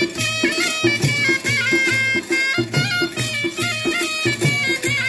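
Traditional folk music: a reedy wind instrument playing a melody with gliding held notes over a steady drum beat.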